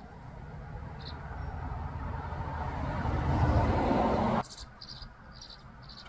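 A rushing noise swells louder for about four seconds and cuts off abruptly. Short, high chirps from tree swallows at the nest box come once about a second in and then several times in quick succession after the noise stops, as an adult lands at the entrance hole.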